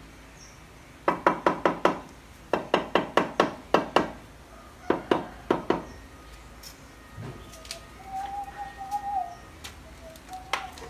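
Quick runs of sharp taps from a mallet on a ceramic stair tile, bedding the tile into its mortar: about five fast taps, then seven more, then two short pairs and a last single tap. A bird calls with a long held note in the quieter second half, and again near the end.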